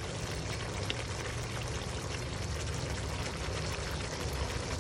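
Thick dark beef curry simmering in a wok: a steady wet bubbling hiss with faint scattered pops.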